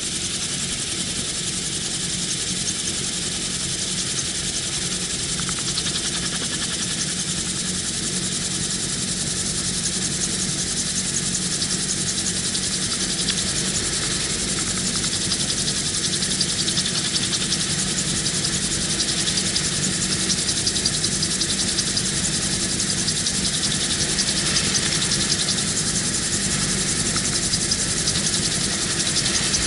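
AutoGyro MTOsport autogyro's engine and pusher propeller running steadily in flight, heard from the open cockpit with loud wind noise rushing over the microphone. The sound grows slightly louder toward the end.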